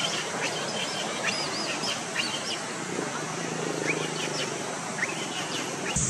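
Short, high chirping calls, several a second, some rising and some arching, over a steady outdoor hiss.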